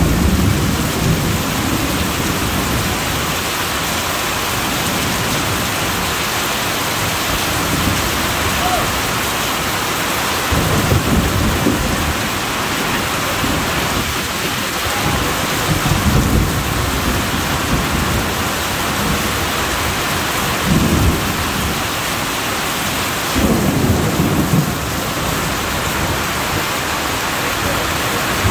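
Heavy rain pouring steadily and running off a roof edge, with low rolls of thunder swelling up about five times, each for a second or two.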